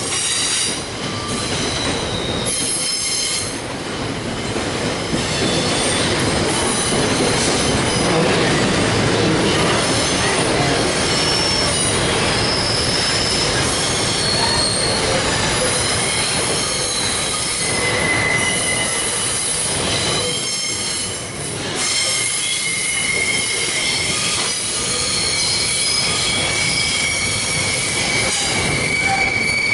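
Container freight train running past, its wagons clattering steadily over the rails with high-pitched wheel squeals coming and going; one squeal tone sets in about two-thirds of the way through and holds to the end.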